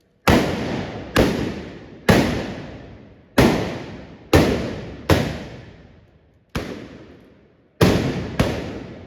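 Trabucs, Catalan blunderbusses, firing blank gunpowder charges in an uneven volley: nine loud blasts, each dying away in a long echo.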